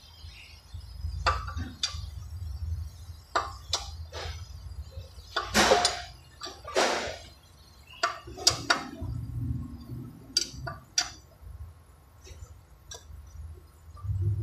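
Metal tools clinking: a socket extension bar being handled and wiped with a rag, giving scattered sharp clicks and clinks. Two louder rustling noises come about halfway through, over a steady low workshop hum.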